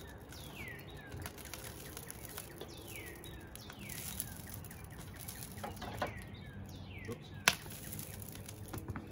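A bird calling repeatedly outdoors, each call a short whistle sliding down in pitch, a second or so apart. A single sharp click cuts in once, late on, louder than the calls.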